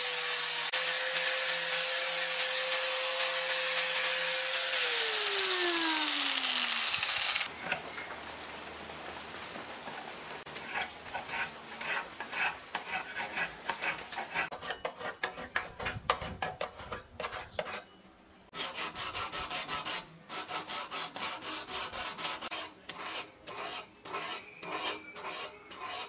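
Angle grinder grinding a steel karambit blade, its motor note falling as it is switched off and spins down about five seconds in. Then a hand file worked along the blade in repeated strokes, with a short pause partway.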